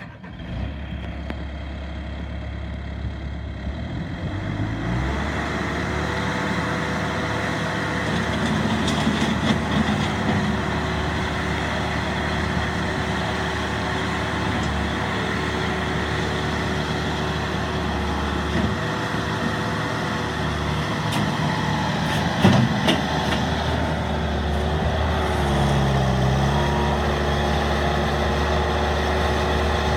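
Bobcat A300 skid steer loader's diesel engine coming to life at once and running steadily. It picks up speed a few seconds in, with a short dip and recovery in engine pitch near the end.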